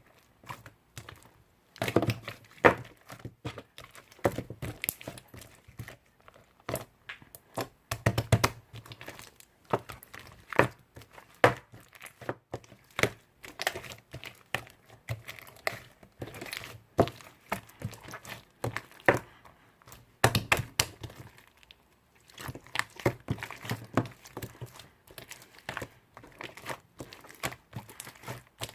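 Hands playing with slime: dense, irregular sticky clicks, crackles and pops as it is pressed, stretched and folded, with soft low thuds now and then.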